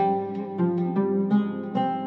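Instrumental music: a string instrument plays a melody in short, ringing notes, two or three a second, over held lower accompanying tones.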